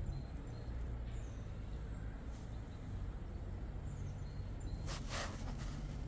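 Outdoor ambience: a steady low rumble with faint, short bird chirps scattered through, and a brief rush of noise about five seconds in.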